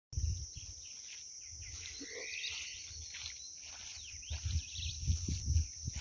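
Outdoor nature ambience: a steady high insect drone with short bird chirps and calls over it, and low rumbling bumps that come more often near the end.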